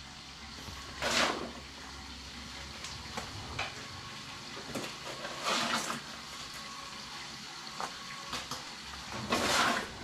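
Cement mix being worked by hand: three rasping scrapes about four seconds apart, with light knocks and clicks between them.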